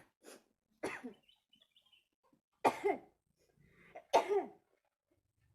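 A woman coughing: a small cough near the start, then three hard, sudden coughs about a second and a half apart, the last two the loudest. The coughing is set off by the chili heat of a spicy guava rujak.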